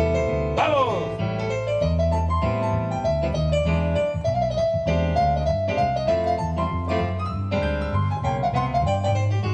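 Live band music led by a stage piano/keyboard playing quick runs of notes over a steady bass line, with a fast falling run about half a second in.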